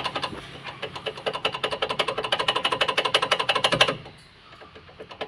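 Renault Kwid front brake caliper shaken by hand on its mount, giving a fast, even rattle of roughly ten knocks a second that stops about four seconds in. It is a light 'kili-kili' clatter rather than a metal-to-metal bang, the sign of worn caliper guide pins letting the caliper shake.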